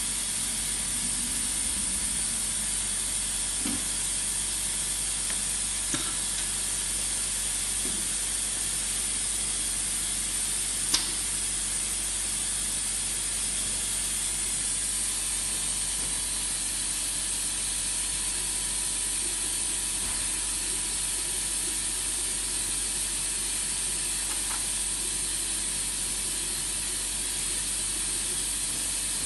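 Steady hiss with a thin high whine, broken by a few faint clicks, the sharpest about eleven seconds in.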